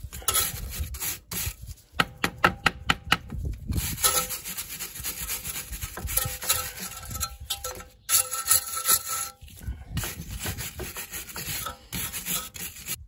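A flat metal tool scraping caked rust and dirt off a car's front wheel hub and steering knuckle in irregular strokes, with a quick run of rapid strokes about two seconds in.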